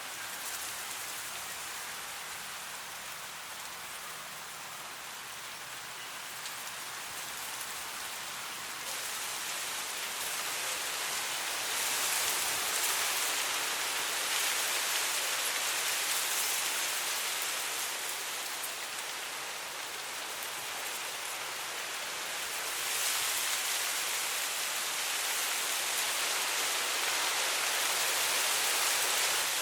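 Wind blowing through dry, tall grass: a steady rustling hiss that swells in gusts about twelve seconds in and again near the end.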